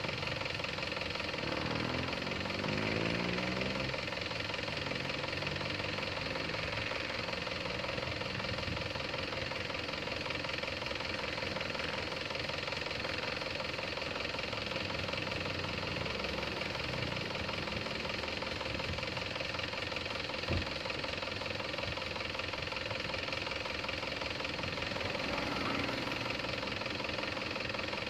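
A steady engine drone, with one short knock about twenty seconds in.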